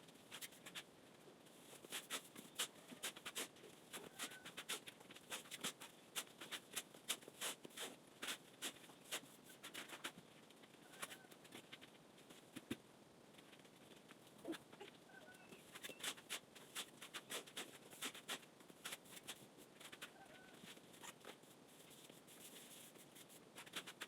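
Many irregular sharp clicks and light taps, with a faint short bird call every few seconds.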